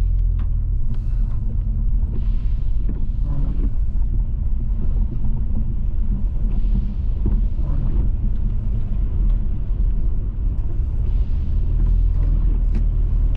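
Subaru Outback creeping through floodwater over a road, heard from inside the cabin: a steady low rumble of engine and tyres, with brief hissing swells now and then.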